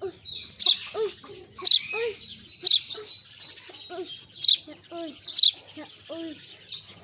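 Sparrows chirping: loud, sharp, high chirps come roughly once a second. Softer, lower-pitched curved calls fill the gaps between them.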